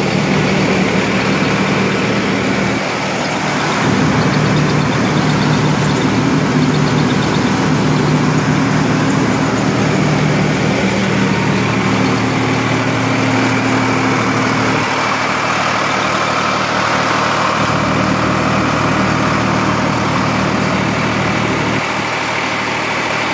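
Sonalika DI-50 tractor engine running steadily, driving a tractor-powered rice mill, together with the mill's continuous grinding rush as it hulls rice.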